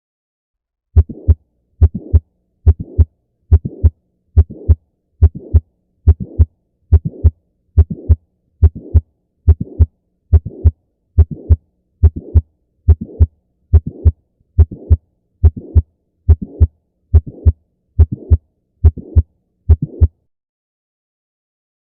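A human heart recording beating steadily at about 70 beats a minute, about 23 beats. Each beat is a paired lub-dub with a hiss between the two sounds, a heart murmur. The recording starts about a second in and stops about two seconds before the end.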